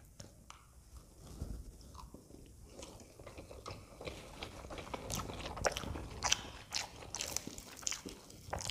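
Close-miked eating sounds: wet chewing of Maggi noodles, then from about halfway a dense run of sharp crackles as a fried samosa's crisp pastry is broken open by hand.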